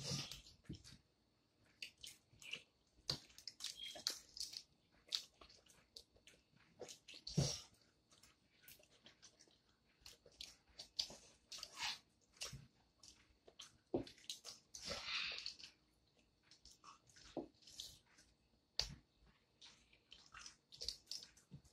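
Boiled peanut shells being split open by hand, a scattered run of soft, irregular cracks and wet squishes, with some chewing.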